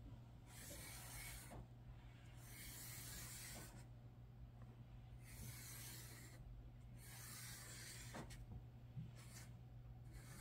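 Black Sharpie felt-tip marker scratching across vellum paper in a series of long drawing strokes, each about a second, with short pauses between.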